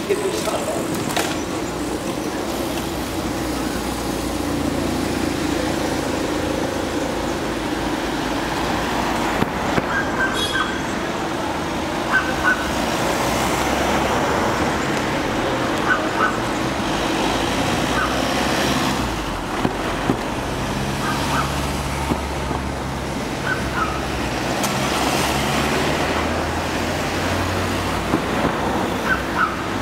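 Support vehicles, an ambulance and Fiat vans, driving slowly past at low speed with their engines running; the low engine hum grows heavier in the second half. Short high chirps come every few seconds.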